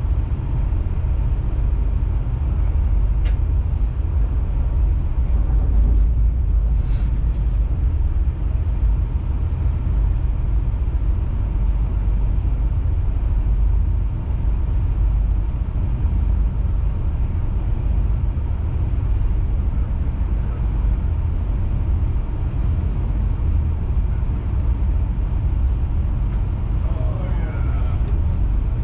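Via Rail 'Canadian' passenger train running, a steady low rumble throughout, with a brief falling squeal near the end.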